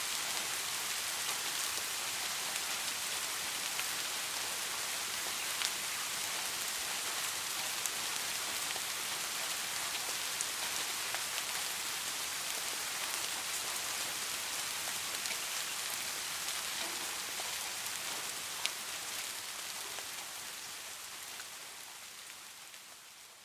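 Steady rain falling, an even hiss with occasional sharper drop ticks, that fades out smoothly over the last few seconds.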